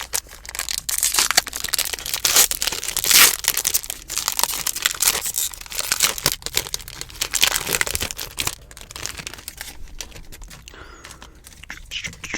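Foil trading-card pack wrapper crinkling and tearing as it is ripped open and handled, a dense crackle that eases off and grows quieter in the last few seconds.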